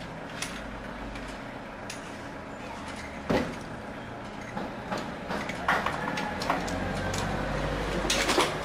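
Metal hand tools clinking and knocking on the bolts that join the gearbox to the engine block as they are undone. There is one sharp knock about three seconds in, scattered clicks, and a cluster of clinks near the end.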